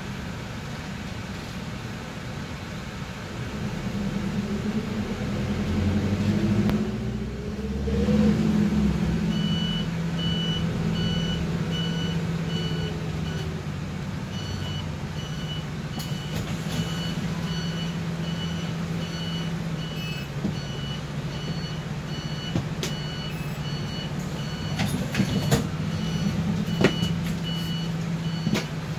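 Mitsubishi Fuso Rosa minibus running, heard from inside the cabin: a steady engine hum whose revs climb and then drop about eight seconds in. From about a third of the way in, a high electronic warning beep sounds about twice a second, with one short break, until the end.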